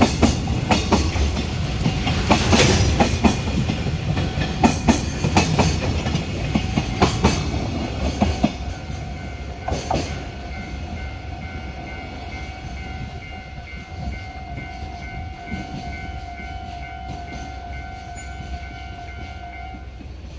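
A container freight train's wagons rolling past, with a loud rumble and a rapid clickety-clack of wheels over rail joints that fades away after about eight seconds as the tail of the train goes by. From about nine seconds a steady ringing tone, the level crossing alarm, carries on almost to the end.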